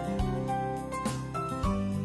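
Background music: instrumental, with piano-like notes over a steady beat.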